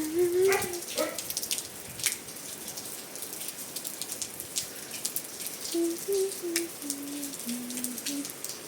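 Rain falling, with individual drops ticking sharply on a hard surface close by over a steady hiss. A person hums a few low notes near the start and again in the second half.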